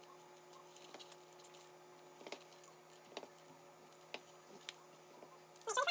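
Light taps, roughly one a second, as a floured utensil is pressed into each ball of peanut-coated cookie dough to make an indentation, with a louder clatter near the end over a faint steady hum.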